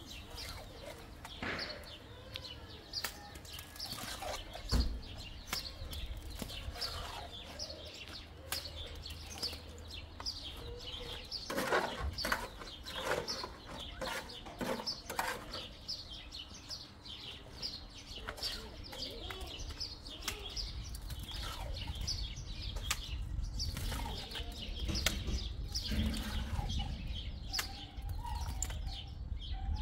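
Farmyard birds: chickens clucking and birds chirping in many short, repeated calls, with a few sharp knocks.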